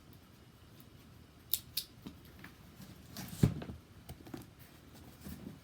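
Cardboard shipping box being handled and opened by hand: a few sharp clicks and snips, with one heavy thump about three and a half seconds in.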